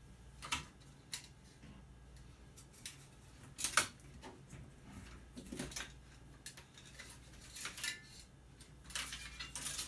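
Scattered clicks and clinks of small metal and plastic parts being handled while a television is taken apart, with a louder cluster of knocks about four seconds in and more near the end.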